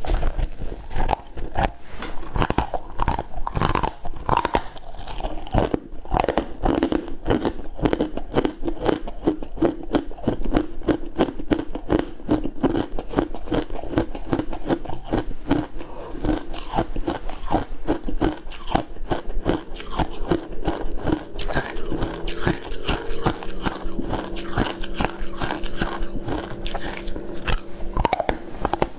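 Close-miked crunching and chewing of matcha-dusted shaved ice and ice chunks, with quick crisp bites packed one after another.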